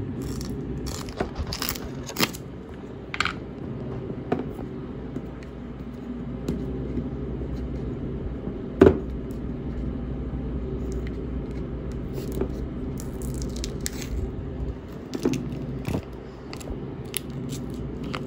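Plastic screw lid twisted off a glass jar of freeze-dried instant coffee, then the foil safety seal lifted and peeled from the rim: scattered clicks, scrapes and tearing rustles, with one sharper click about nine seconds in. A steady low hum runs underneath.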